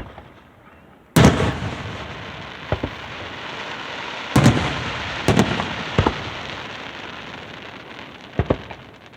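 Aerial fireworks shells bursting: a big boom about a second in, followed by a long crackling hiss that slowly fades, then several more booms and a quick double bang near the end.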